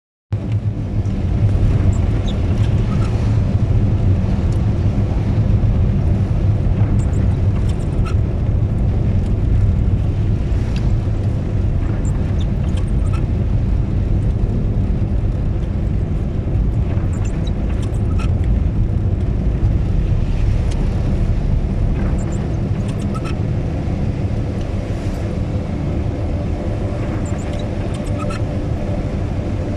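Steady low rumble of a moving vehicle, with faint scattered ticks over it.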